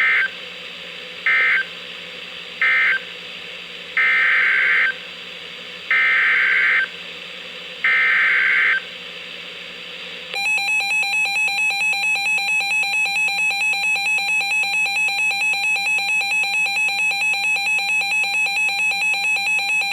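NOAA Weather Radio SAME digital data bursts: three short end-of-message bursts, then three longer header bursts for the next alert. About ten seconds in, a loud, rapidly pulsing electronic alert tone from a weather radio receiver starts and keeps going, signalling an incoming warning.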